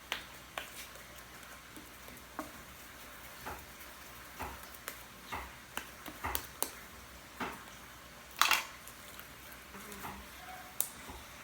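Irregular light clicks and knocks of a spoon and small plastic pots on a table, about one a second, with a louder clatter a little over eight seconds in.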